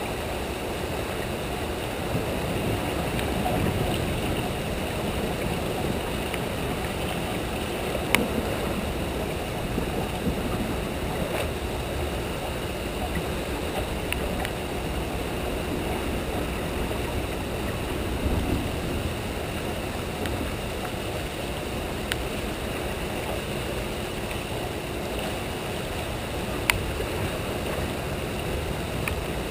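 Steady rushing of turbulent tailwater boiling out below a hydroelectric dam, with a few sharp knocks, the loudest about eight seconds in and near the end.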